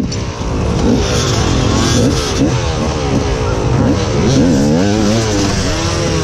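KTM enduro motorcycle engine revved up and down again and again in short blips, the rider feathering the throttle to pick the bike over logs in deep sand.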